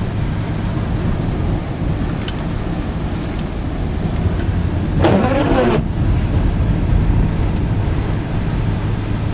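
Car driving on snowy roads: a steady low rumble of engine and road noise, with a brief pitched sound about five seconds in.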